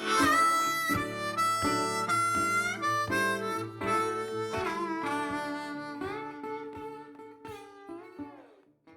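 Background music with harmonica and acoustic guitar, with bent harmonica notes, fading out near the end.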